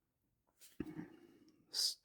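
Near silence in a small room. About a second in comes a short, soft, breathy murmur, and near the end the hiss of the next spoken word begins.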